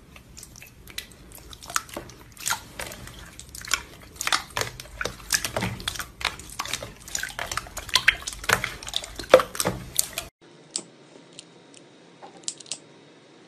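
Hands squeezing and kneading a large mass of glossy slime: a dense run of wet squishes, pops and crackles that cuts off abruptly about ten seconds in. After that come a few faint pops as a finger presses into foamy slime.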